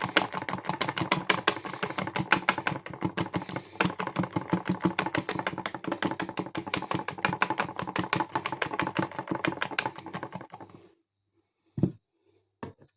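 Whisk beating Dream Topping mix in a jug, rattling against the sides in a rapid, even clicking; the topping has doubled and is thickening. The whisking stops about eleven seconds in, followed by two short taps.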